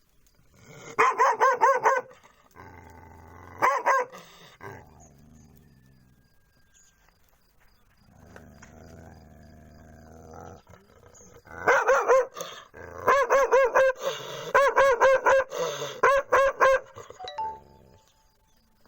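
German Shepherd barking in quick runs of several barks at a time, with quieter lulls between them. The longest, densest run of barking comes in the last third.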